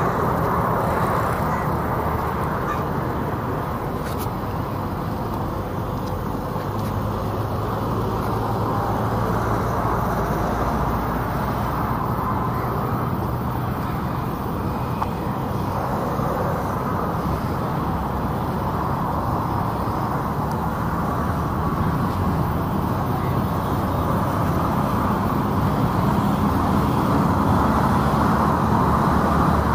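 Steady road traffic noise: an even, continuous rumble with no single vehicle standing out.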